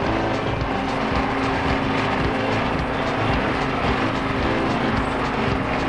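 Helicopter flying overhead: its engine and rotor give a steady drone with a constant humming tone.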